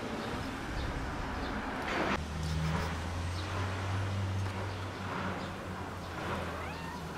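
An engine runs with a steady low hum, starting about two seconds in just after a brief noisy burst, over general street noise.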